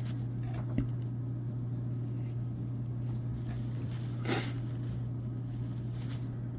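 Steady low hum, with a faint click about a second in and one short, sharp breath through the nose a little after four seconds in.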